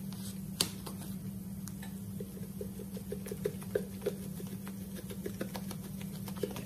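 Onion powder being shaken from its container into a pot of tomato sauce: a run of light, quick ticks, about four or five a second, over a steady low hum, with one sharper click near the start.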